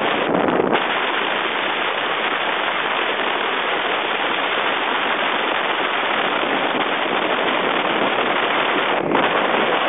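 Wind rushing over the microphone of a Pino tandem recumbent bicycle coasting fast downhill: a loud, steady hiss.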